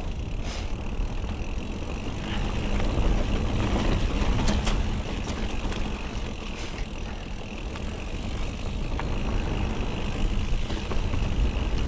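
Mountain bike being ridden along a dirt trail: steady tyre and wind noise with scattered rattles and clicks from the bike.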